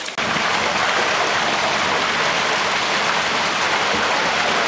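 Steady rush of water gushing out of a fish-stocking truck's tank and splashing into the lake as trout are released; it starts suddenly just after the beginning.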